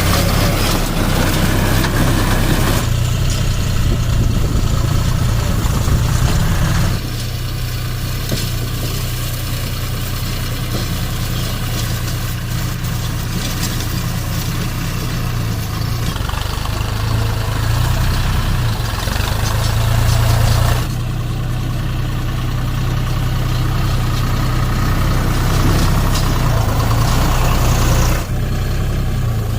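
Deutz Fahr 4050E tractor's three-cylinder diesel engine running steadily, with a low hum throughout; the sound shifts abruptly in level several times.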